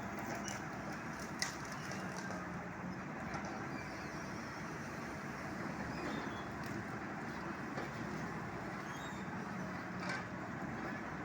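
Steady vehicle engine running, with a few sharp knocks, one about a second and a half in and another near the end.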